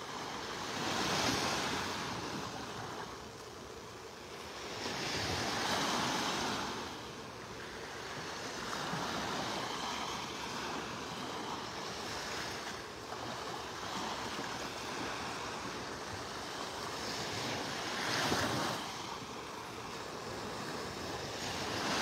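Small waves of the Gulf of Mexico washing onto the beach, the surf swelling and falling every few seconds, with the biggest swells about a second in, around six seconds, and near the end.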